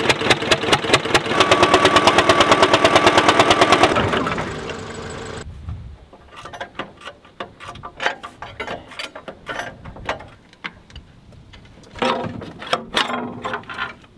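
Soviet tractor's diesel engine running with rapid, even firing knocks, then dying away about four to five seconds in: it catches but won't keep running, which the owners put down to the fuel pump, its governor stuck. After it stops, scattered light clicks and knocks.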